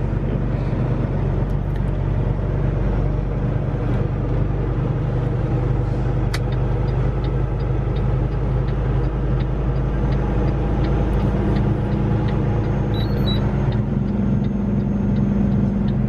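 Semi-truck diesel engine and cab noise heard from inside the cab while rolling slowly: a steady low drone. Faint regular ticking runs through the middle.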